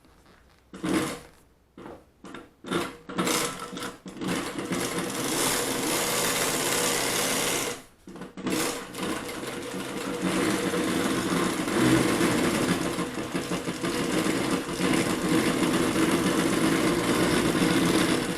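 NMD-20628 heavy-duty double-needle walking-foot industrial sewing machine stitching through four layers of faux leather. A few short bursts of stitches first, then steady sewing, a brief stop about eight seconds in, then steady sewing again until it stops near the end.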